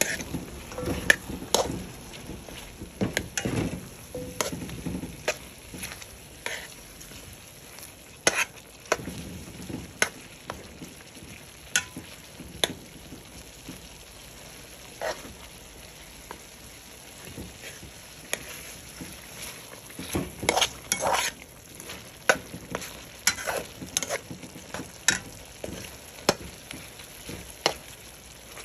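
Chicken pieces sizzling in a large metal pot as a silicone spatula stirs them, with irregular scrapes and knocks of the stirring against the pot, busiest about two-thirds of the way through.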